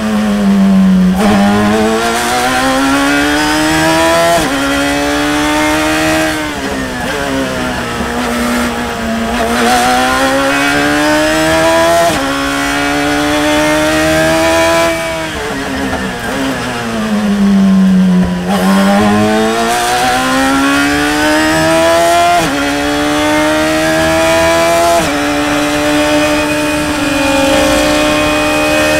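Radical SR3 RSX's 1340 cc four-cylinder motorcycle-derived engine at racing speed, heard from the cockpit. It revs up through the gears with quick sequential upshifts, where the pitch drops suddenly, and twice winds down in pitch under braking for corners before climbing again.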